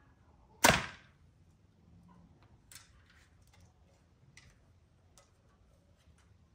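Hoyt RX7 compound bow, set at 82 pounds, shot once about half a second in: a single sharp crack of the string releasing the arrow that dies away quickly, followed by a few faint clicks.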